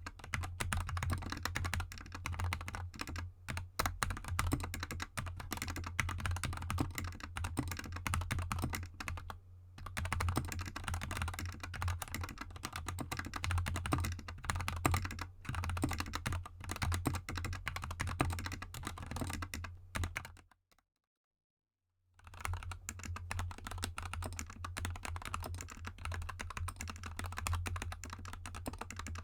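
Continuous fast typing on a GK64 mechanical keyboard with lubed Gateron Yellow linear switches and XDA keycaps: a dense run of key presses. The typing breaks off into silence for about a second and a half around two-thirds of the way through, then resumes.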